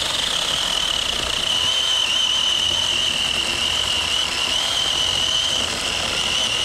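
Taranzy battery-powered mini chainsaw running at full speed with its chain cutting through a log about 3 inches thick. It makes a steady high-pitched whine over the rasp of chain on wood, and it powers through the cut.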